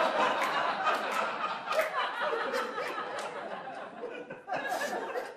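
Studio audience laughing after a joke, strong at first and dying away toward the end with a brief second swell.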